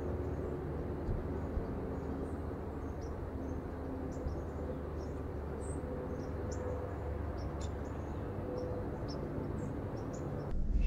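Quiet outdoor field ambience: a steady low rumble with scattered faint, short, high chirps of small birds. The sound cuts off abruptly near the end.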